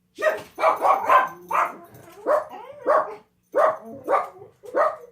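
A dog barking repeatedly, about ten sharp barks in quick succession, some in close pairs.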